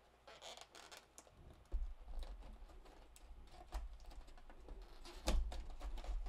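Handling a small cardboard box: scattered light taps and clicks of fingernails against the carton, with dull bumps about two seconds in and again near five seconds in as it is set back into the shipping carton.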